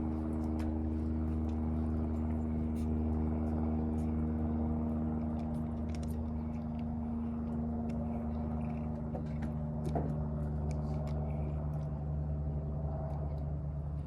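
A steady low engine-like hum made of several held tones, whose pitch shifts about halfway through, with scattered light clicks over it.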